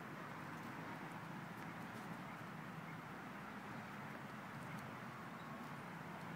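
Steady outdoor background noise, an even hiss without any clear pitch, with a few faint ticks scattered through it.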